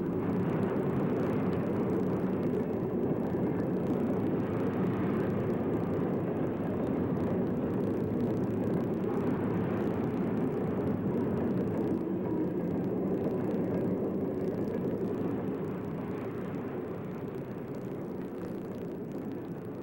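Steam-hauled freight train running, a steady rumble that eases slightly near the end.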